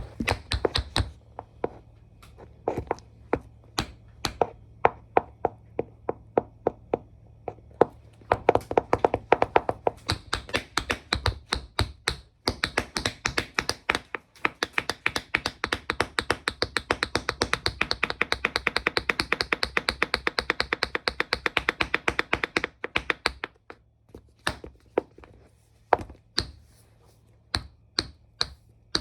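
Tap shoes' metal taps striking a hard floor. Scattered single taps build into a fast, even run of rapid taps lasting about ten seconds, then thin out to scattered taps again.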